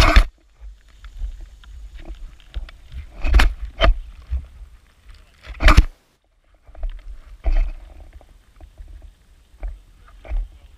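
Sheep nosing and bumping a ground-level camera while they feed on grain: a string of loud knocks and rubs on the camera housing, with scuffing between them. The sound cuts out for about half a second just after the middle.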